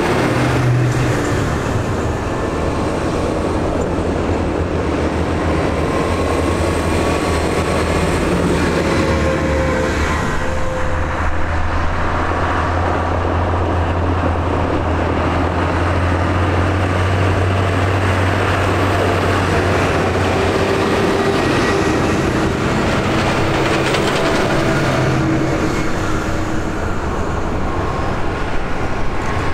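Large diesel farm tractors driving past one after another along a tarmac road, their engines a steady low drone.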